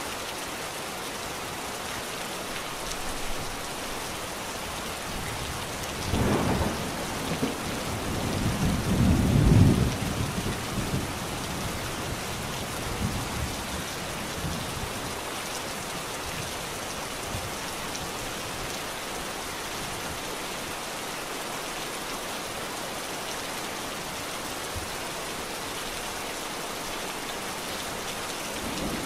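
Steady rainfall hissing, with a roll of thunder rumbling in about six seconds in and fading out by about eleven seconds, loudest around nine to ten seconds.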